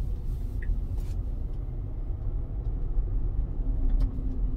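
Low, steady road and tyre rumble heard inside the cabin of a 2022 Tesla Model Y Performance as it moves slowly, with a few faint clicks.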